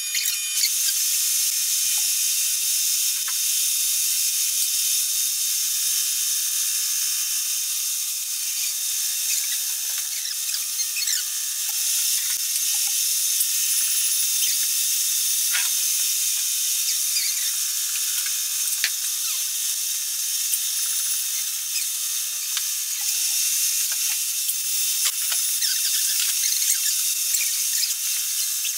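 Induma horizontal milling machine running a hand-ground HSS cutter through a brass blank under power feed, cutting the teeth of a clock escapement: a steady high-pitched cutting noise with scattered small ticks.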